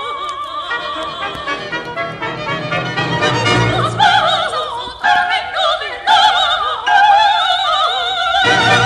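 Classical vocal music: a high female voice sings phrases with wide vibrato over an orchestra. The voice comes in more strongly, in separate phrases, from about halfway through.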